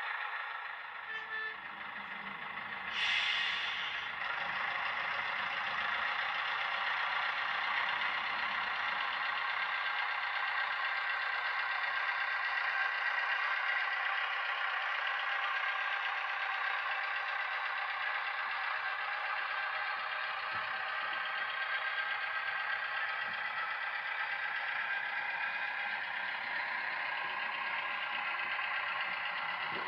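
Model Fowler diesel shunter in O gauge running steadily as it shunts tank wagons: an even, thin mechanical engine sound with several steady tones, heard as from a small speaker. There is a short hiss about three seconds in.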